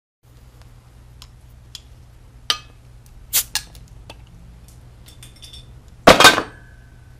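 Glass beer bottle being opened with a metal tool: a few light clinks of metal against the cap and glass, then a loud hissing pop as the cap comes off a little after six seconds in.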